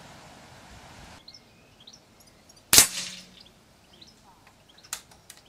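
A single shot from a silenced .177 PCP air rifle at full FAC power: one sharp crack with a short ringing tail, about three seconds in. A couple of light clicks follow about two seconds later, with faint birdsong behind.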